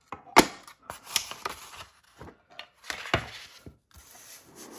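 Wooden pen box and paper being handled on a table: a sharp knock about half a second in, then several lighter knocks and taps with some rustling and sliding of paper in between.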